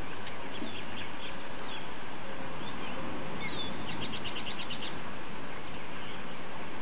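Small birds chirping in the background over a steady outdoor hiss, with a quick trill of about ten even notes between roughly three and a half and five seconds in.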